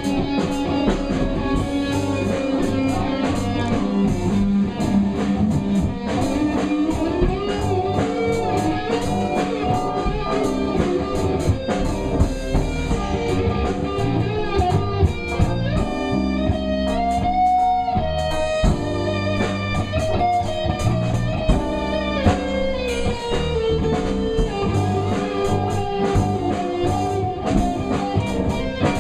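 Live rock band with an electric guitar solo, the lead line bending and sustaining over bass and steady drums. A little past the middle the guitar holds one long note.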